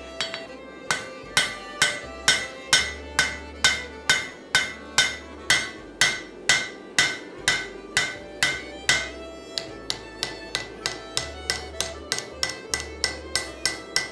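Hand hammer striking a hot axe blade on an anvil, hand forging. Ringing blows come about two a second, then from about nine and a half seconds in they turn lighter and quicker, about three a second.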